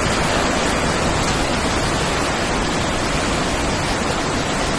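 Heavy downpour with rain pouring off the barn roof: a loud, steady rush of water.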